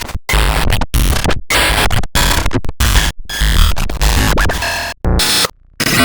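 Digital glitch sound effects: harsh bursts of static and distorted noise chopped into short stuttering pieces, cut off by sudden dropouts. A brief buzzing tone comes about five seconds in, followed by a moment of near silence.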